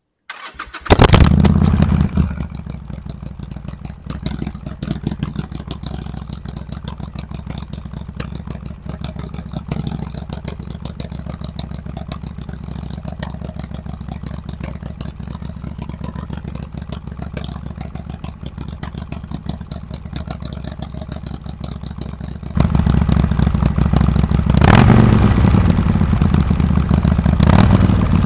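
Harley-Davidson Iron 883's air-cooled V-twin exhaust: cranked on the electric starter, it catches about a second in with a loud burst, then settles to a steady idle. Near the end the throttle is opened and it runs louder, with two short revs.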